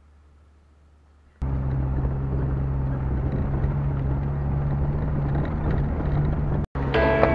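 Jeep Wrangler driving on a gravel track with its top off: a steady low engine drone under wind and tyre noise, which cuts in suddenly after a quiet opening second and a half.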